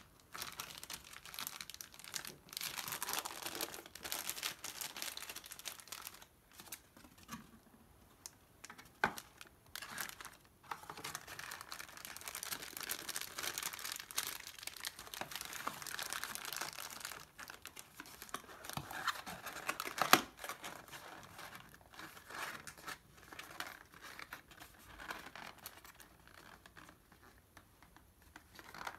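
Crinkling of aluminium foil and a plastic zip-top freezer bag as they are pressed and handled, in bursts with short pauses, and a single sharp click about two-thirds of the way through.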